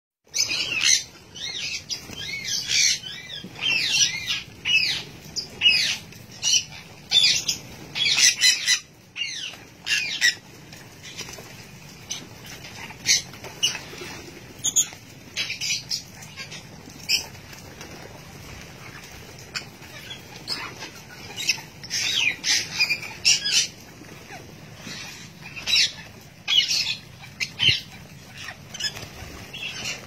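A flock of lovebirds and sun conures calling over their food: shrill squawks and chirps in quick clusters, thinning out for a few seconds around the middle before picking up again.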